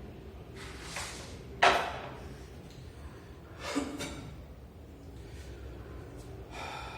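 A kitchen door banging shut with a sharp knock, the loudest sound, a little under two seconds in, after a softer knock. A second, weaker knock with a short creak follows about two seconds later.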